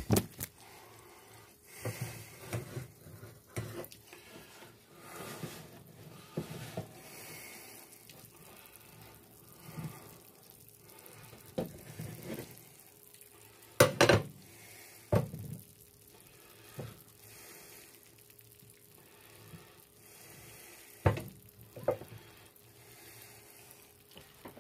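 Scattered knocks and clinks of dishes and utensils being handled in a kitchen, loudest about 14 and 21 seconds in, with quiet stretches between.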